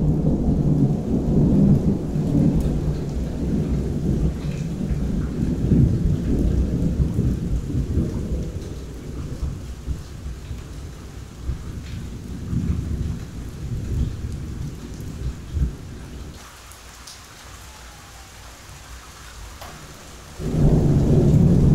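Thunder from a close storm rumbling and slowly dying away over steady falling rain. Near the end a new loud peal of thunder breaks in suddenly.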